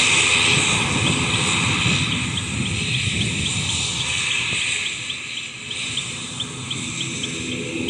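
Aircraft engine noise from a plane moving away, loud at first and fading about halfway through, with a faint, steady high ticking at about three per second underneath.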